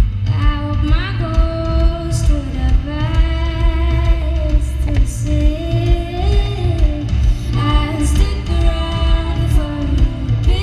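Live band music with a woman singing long, drawn-out notes that slide between pitches, in phrases a few seconds apart, over strong, constant bass, as heard from the audience.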